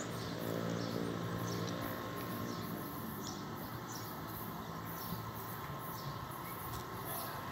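Outdoor ambience: short high-pitched chirps repeating about twice a second over a low steady hum.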